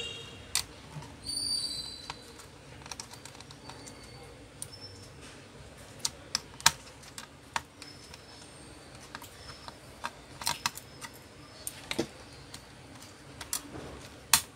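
Sharp clicks and taps at irregular intervals from the small plastic and metal parts of an opened ASUS C202S laptop being handled and worked with a screwdriver, with a short high squeak about a second and a half in.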